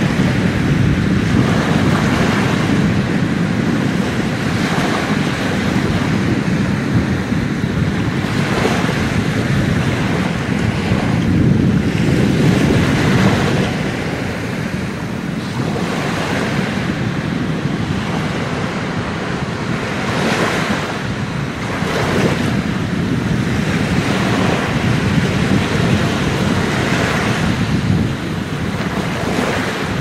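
Small sea waves breaking and washing up on a sandy shore: a continuous wash of surf that swells into a hiss every few seconds as each wave spills, with wind rumbling on the phone's microphone.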